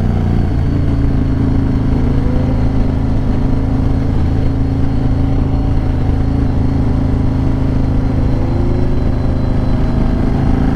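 Yamaha Raider cruiser's V-twin engine running at a steady cruise, heard from the rider's seat with a steady rush of wind.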